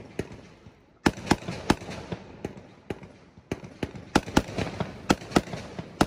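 Fireworks going off: a dozen or so sharp cracks and bangs in irregular succession, coming thick and fast from about a second in after a brief lull.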